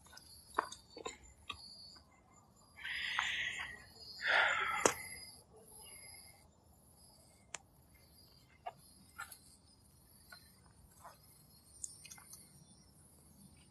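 Footsteps on dirt and dry twigs with scattered light clicks, over a faint background of insects and birds. Two short hissing noises come about three and four and a half seconds in, the loudest sounds here.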